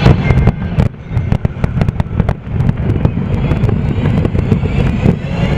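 Aerial fireworks bursting: a rapid series of sharp bangs and crackles, densest in the first few seconds and thinning out afterwards, over a steady low rumble.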